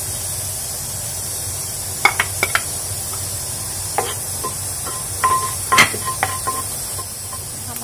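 Wooden spatula stirring cumin seeds in hot oil in a non-stick kadai, knocking against the pan a handful of times from about two seconds in, loudest near six seconds, over a steady hiss.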